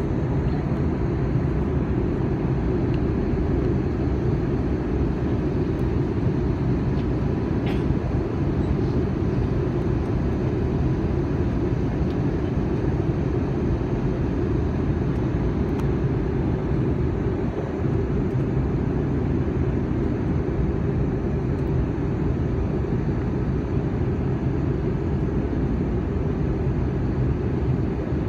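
Steady engine and airflow rumble inside an airliner cabin during descent, even and unbroken, with a faint thin whine above it.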